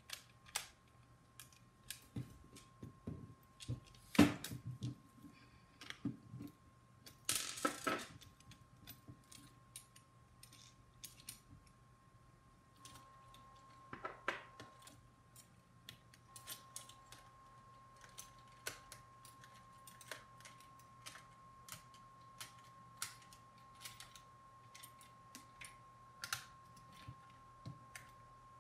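Small clicks, taps and rattles of plastic blaster parts and metal screws and nuts being handled and fitted together on a wooden workbench. A louder knock comes about four seconds in, and a short rustle just before eight seconds.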